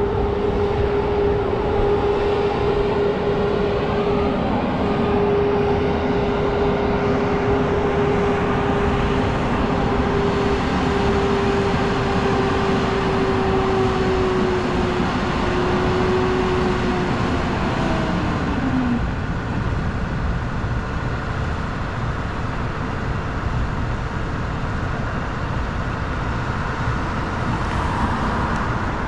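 City street traffic with a steady engine drone. Partway through, the drone slides down in pitch and dies away.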